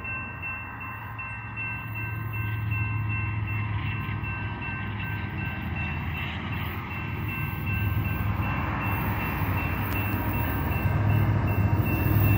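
Diesel locomotives of an approaching freight train rumbling, the low rumble growing steadily louder as the train draws closer. A thin steady high tone runs above it.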